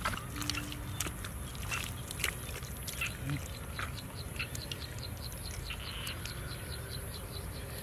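Bare hands digging and squelching in wet mud, with irregular small wet clicks and smacks, over a steady high-pitched hiss.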